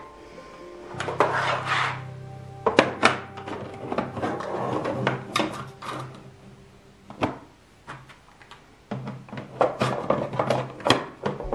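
Hard plastic drawer organizer bins being set down and shuffled in a drawer: a scatter of short clacks, knocks and light rubbing, with background music playing.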